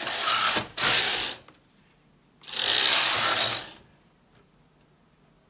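Brother KH260 knitting machine carriage pushed across the needle bed in three passes, the first two back to back and the third about a second later. It is knitting short rows for an earflap, one row at a time. Faint ticks follow in the quieter last part.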